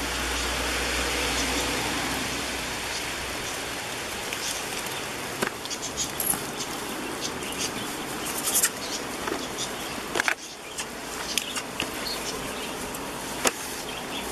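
Steady rain hiss, with scattered sharp ticks and knocks from about a third of the way in.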